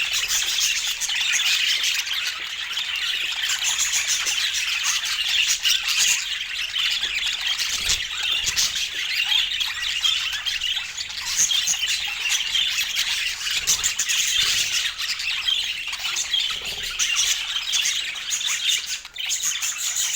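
Several pet budgerigars chattering, chirping and squawking without a break, many calls overlapping.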